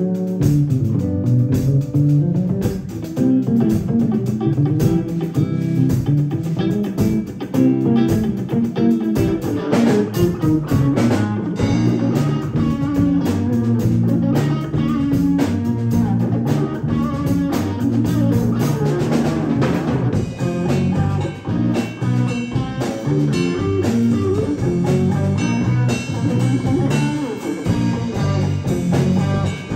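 Live band playing: an electric bass guitar, an electric guitar and a drum kit together in a funk groove.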